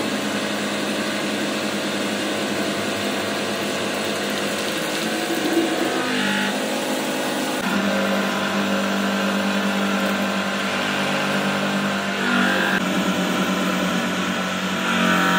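Hydraulic press's pump motor running with a steady mechanical hum as the ram is driven down. The hum changes and gets louder about eight seconds in, and again briefly about twelve seconds in.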